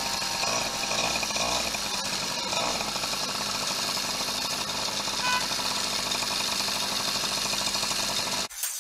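Two-stroke moped engine running, its buzzing pitch rising and falling a few times in the first three seconds, then holding steady. It cuts off suddenly just before the end.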